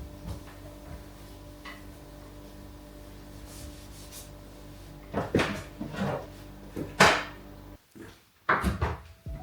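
Kitchen cleaning and tidying sounds: a string of sharp knocks and clatters of things being handled and set down, the loudest about seven seconds in and a few more near the end, over a low steady hum.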